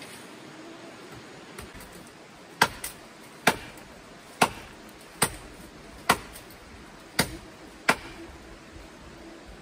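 Chopping with a blade: seven sharp strikes, about one a second, beginning a couple of seconds in, over a steady background hiss.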